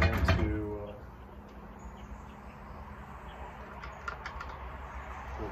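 A few faint, light clicks of a small chainsaw's chain and bar being handled by hand, after a brief bit of speech at the start.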